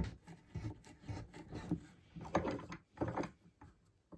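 A sharp knock, then a handful of irregular rubbing, scraping strokes on a clamped wooden block worked by hand.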